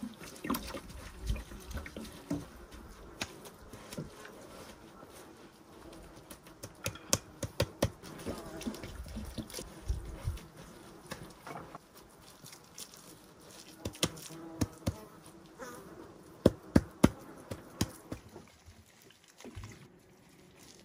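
Bare hands kneading, scraping and patting damp soil mixed with water into a clay-like mud, with scattered short crunches and soft knocks, clustered about a third of the way in and again past the middle.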